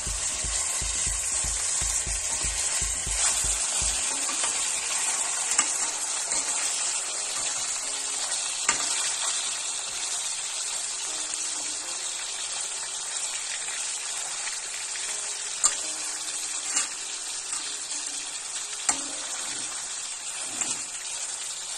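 Bacon-wrapped turkey breast roll sizzling steadily in hot olive oil in a pot, browning, with a few sharp clicks of a metal spatula and wooden spoon against the pot as the roll is turned.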